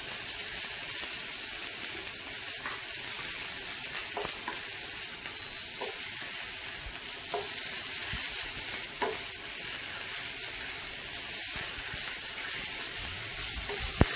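Minced beef sizzling in hot oil in a nonstick frying pan, a steady hiss as the meat's water cooks off, with light taps of a wooden spatula stirring it about every one and a half seconds.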